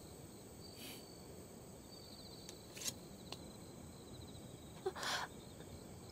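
Faint outdoor ambience of crickets chirping in short high trains over a low hiss, with a few soft clicks, the loudest about five seconds in.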